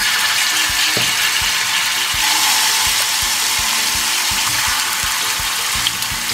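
Yogurt-marinated boneless chicken pieces sizzling in hot oil in a frying pan, a steady hiss with many quick pops and crackles from spattering oil.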